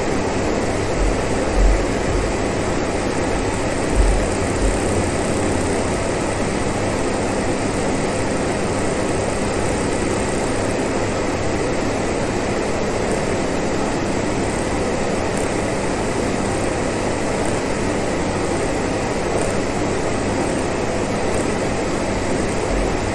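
Electric fan heater blowing hot air: a steady rush of air, with a few brief low thumps about two and four seconds in and again at the very end.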